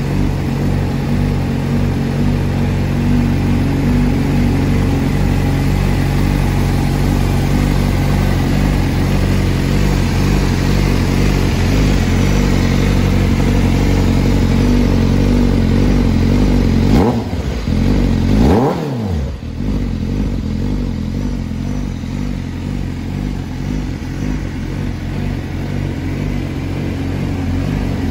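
Honda CBR1000RR-R Fireblade SP's inline-four engine idling steadily, blipped twice in quick succession about two-thirds of the way through, each rev rising sharply and dropping straight back to idle.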